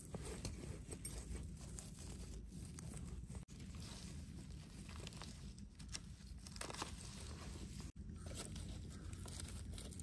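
Soft scraping and rustling as a small knife trims soil from the stems of small wild mushrooms held in the hand, with dry leaves crinkling. Several light strokes are scattered through, over a low steady rumble.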